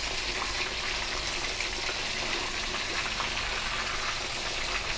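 Pork neck frying in hot oil, a steady sizzle.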